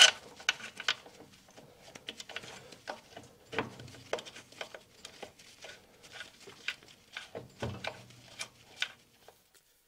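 Scattered light clicks and knocks of metal parts and tools being handled while an exhaust and its bolts are fitted to a scooter engine. There is a louder clatter right at the start.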